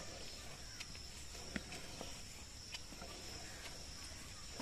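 Milk squirting into a pail as a cow is milked by hand, in short spurts about once a second. A steady high insect drone runs underneath.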